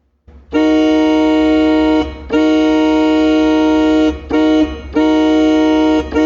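Yamaha PSR-F51 keyboard playing a held organ-like chord that imitates a locomotive horn, starting about half a second in. It sounds four blasts, long, long, short, long: the grade-crossing horn signal.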